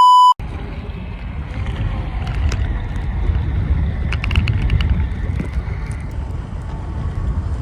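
A censor bleep, one steady high beep, cuts off within the first half second. Then a steady low rumble of wind buffeting the phone's microphone and water rushing by on a moving jet ski, with scattered small clicks.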